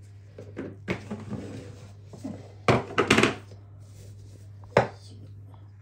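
Kitchen clatter while spices are added to a tempering: a few sharp knocks and clinks of containers and utensils, the loudest cluster about three seconds in, over a steady low hum.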